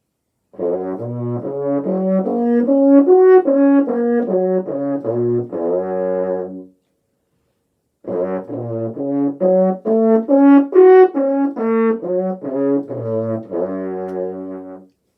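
French horn playing two arpeggios, each about six seconds long, with a short pause between. The notes climb and then come back down, consistent with the two-octave D flat major and C sharp minor arpeggios.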